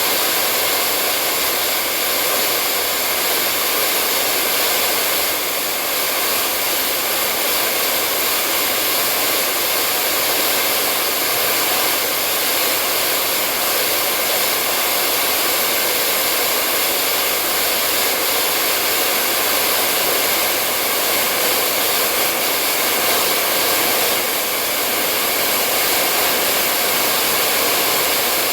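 Hair dryer blowing continuously at a steady speed: an even, unchanging hiss of rushing air over a faint motor hum.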